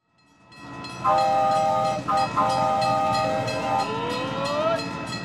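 Steam train coming closer: a low rumble grows louder over the first second. Then a whistle sounds several tones at once in two blasts, the second one longer, and rising tones follow near the end.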